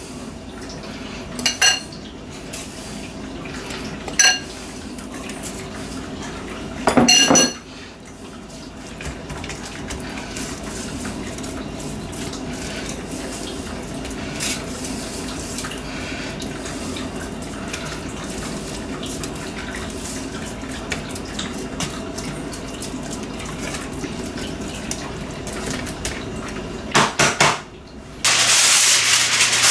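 A few short, bright clinks of a utensil against a dish, a couple of seconds apart, while a dry rub is worked onto pork ribs in an aluminum pan, with a steady soft rustle in between. Near the end comes a loud crinkling of aluminum foil being pulled over the pan.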